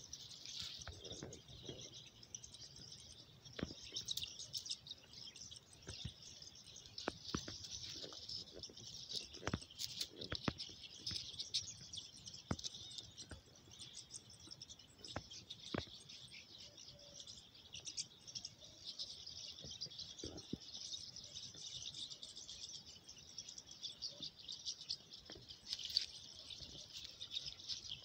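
Sharp clicks and rustles of fingers handling the dry stubble and eggs of a lapwing ground nest close to the microphone, over a steady high-pitched chirping chorus.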